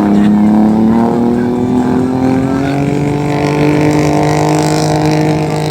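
A watercraft engine running hard and steadily, its pitch slowly rising.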